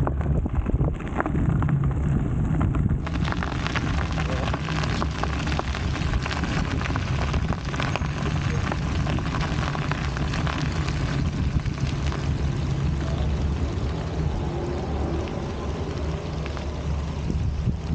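Wind rumbling on the microphone over the steady hiss of a fat-tyred electric scooter and dog trailer rolling on wet, slushy pavement, with a brighter hiss from about three seconds in.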